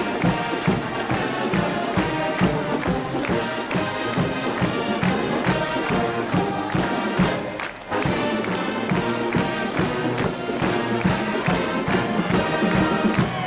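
Brass marching band playing a tune over a steady drumbeat.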